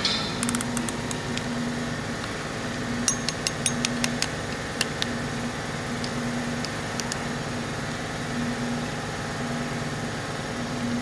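Steady mechanical hum of running machinery, with a low tone pulsing on and off about once a second. A quick run of light clicks comes about three to four seconds in, and a few single clicks follow later.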